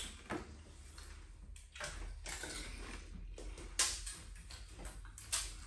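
Scattered crisp cracks and clicks of hollow golgappa (pani puri) shells being broken open and bitten, the sharpest about four and five and a half seconds in, over a faint low hum.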